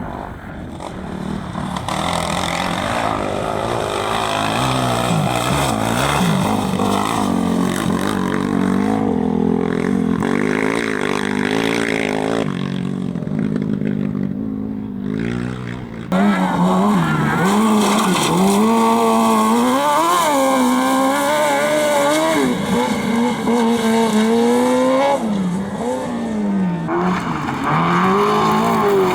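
Competition engine revving hard on a gravel slalom run, its pitch climbing and dropping again and again with throttle and gear changes. About halfway through the sound jumps abruptly to another run, louder and closer.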